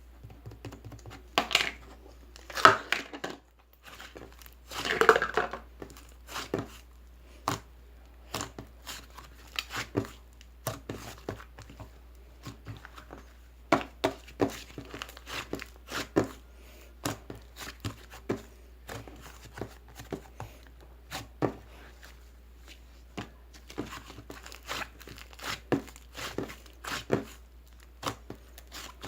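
Crinkling and rustling of handled material, with irregular sharp clicks and taps and a few louder crinkly bursts in the first few seconds.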